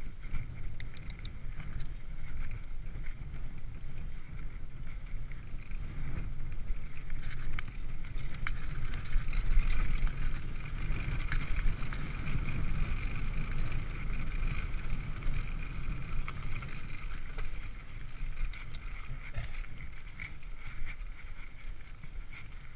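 Mountain bike rolling along a dirt track: steady tyre noise on the dirt with occasional clicks and rattles from the bike, and wind rumbling on the camera microphone.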